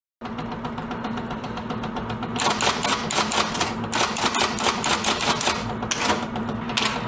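Typewriter keys clacking in rapid runs of keystrokes, with two louder runs in the middle and a short one near the end.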